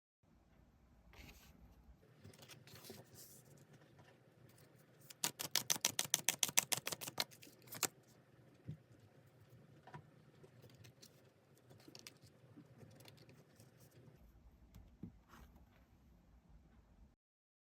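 Tarot cards being shuffled and handled, with a quick run of rapid card clicks about five seconds in, and softer scattered rustles and taps around it.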